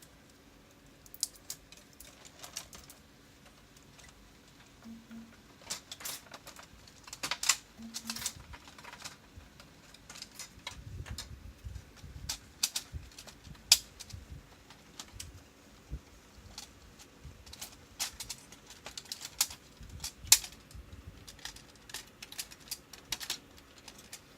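Irregular clicks, taps and small knocks of plastic and metal parts being handled as the paper-feed mechanism of an Alps MD5500 printer is taken apart, with a few duller thumps partway through.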